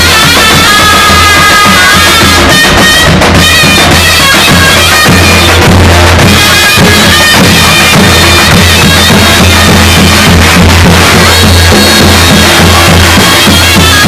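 Davul and zurna playing loudly together: the zurna's shrill reed melody, wavering and ornamented, over the steady low boom of the davul.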